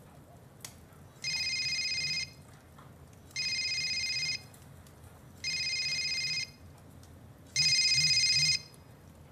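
Mobile phone ringing with an incoming call: four one-second trills of its ringtone about two seconds apart, the last one louder.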